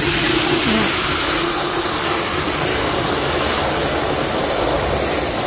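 Jet of water from a garden hose spray nozzle blasting into a plastic bucket of dishwashing-soap water, churning up suds. A loud, steady spray.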